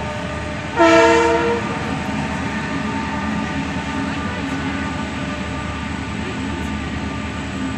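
Diesel freight train passing: the locomotive sounds its horn once about a second in, a short loud blast, then its engine and the rolling wagons run on with a steady rumble and hum.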